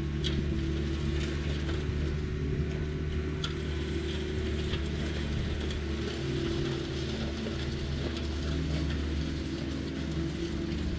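Compact tracked diesel machine engine running steadily, with a few faint clicks and clanks of metal parts over it.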